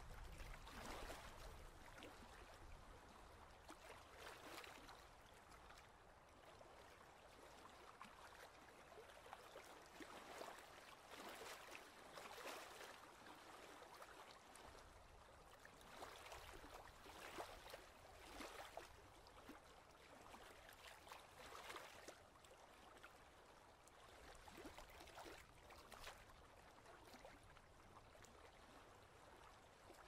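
Small lake waves lapping softly and irregularly against a rocky shore, a gentle wash every second or two.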